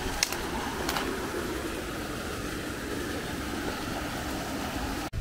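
Steady rushing of a creek swollen by typhoon rain, with two faint clicks in the first second.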